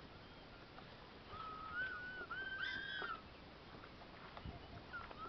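A few faint, high whistle-like animal calls, notes gliding up and down, about midway through.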